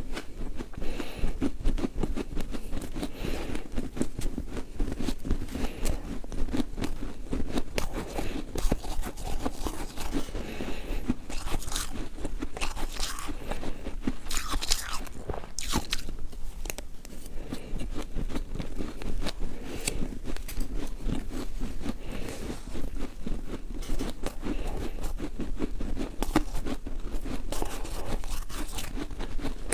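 Ice being bitten and chewed, a continuous run of crunches and cracks close to the microphone.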